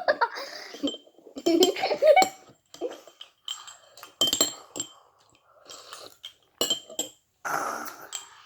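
Spoon clinking against a dish in scattered light knocks while cereal-like chocolate balls in milk are eaten, with a short bit of voice or giggling about two seconds in.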